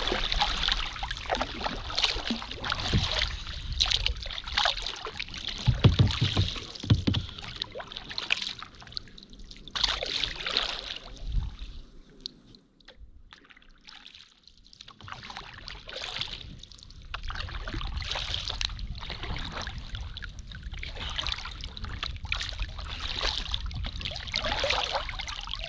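Paddles stroking and splashing in river water from a paddled boat, with water trickling and a couple of low knocks about six seconds in; it goes quieter for a few seconds midway, then the paddling picks up again.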